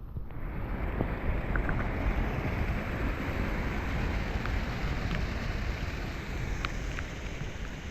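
Steady rush of flowing water and rain, with wind buffeting the microphone; it swells about a third of a second in and then holds steady.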